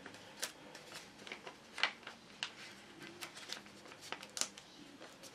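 Folded printer paper being handled and pressed between the fingers: soft rustling with a handful of short, sharp crackles spread through the moment.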